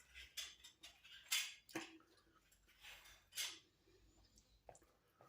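Quiet eating sounds: scattered short clicks and mouth noises of people eating from takeout plates, with cutlery.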